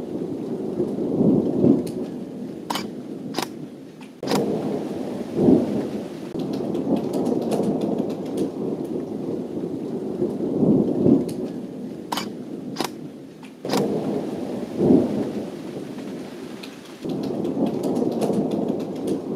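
Thunderstorm: steady rain with rumbling thunder that swells several times, and a few sharp clicks of close drops.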